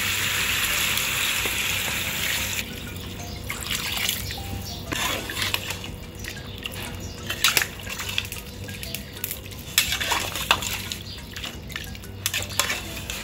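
Water poured into a pot of chicken frying in spiced oil: a loud hiss for about two and a half seconds that cuts off suddenly. Then a metal spatula knocks and scrapes against the pot as the chicken is stirred through the broth.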